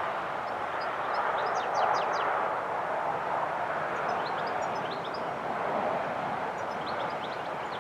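Small birds singing in three short bursts of quick, high, falling chirps over a steady rushing background noise.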